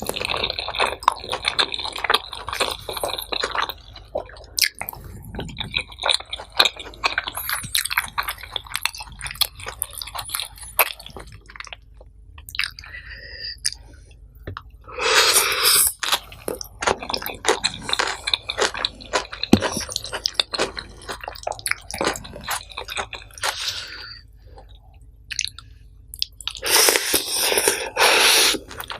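Close-miked ASMR chewing: a person eating nasi pecel, rice and vegetables in peanut sauce, with a dense run of wet mouth clicks and smacks. Two louder stretches of noise come about halfway through and again near the end.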